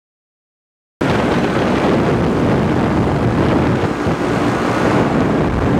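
Steady engine drone mixed with wind rush, cutting in suddenly about a second in after silence.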